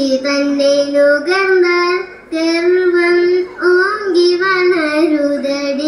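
A young girl singing a Tamil verse solo and unaccompanied, holding long notes with a slight waver and pausing briefly for breath about two seconds in.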